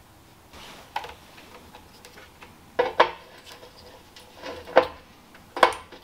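Hard clinks and knocks of compressor parts being handled and fitted back together by hand, about half a dozen sharp strikes, loudest around three seconds in and again near the end.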